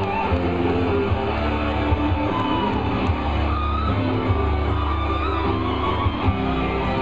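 Rock music with strummed guitar over a steady, heavy bass line, played loud and continuous.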